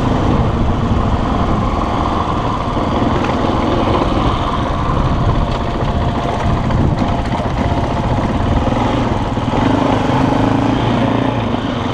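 A small vehicle engine running steadily while under way.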